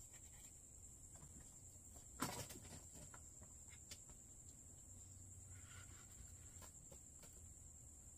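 Near silence: quiet room tone with a faint steady high whine, broken about two seconds in by a short knock and rustle of hands handling the plant pot and a cloth rag, and a smaller click a couple of seconds later.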